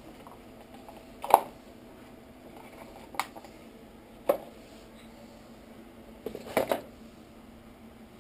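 Hand tools knocking and clinking on a cluttered workbench as they are sorted through by hand: a few separate sharp knocks, the loudest about a second in, and a quick cluster of two or three near the end, over a faint steady hum.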